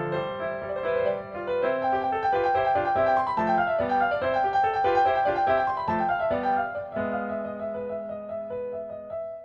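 Background music: a piano melody in quick runs of notes over held low notes, settling into sustained chords in the last couple of seconds.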